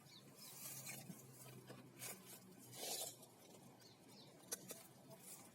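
Near silence with faint rustling and handling noise, and one small sharp click about four and a half seconds in.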